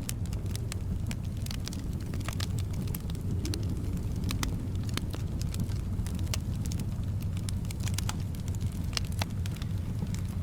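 Wood fire in a fireplace crackling, with irregular sharp pops and snaps over a steady low rumble of flame and soft wind.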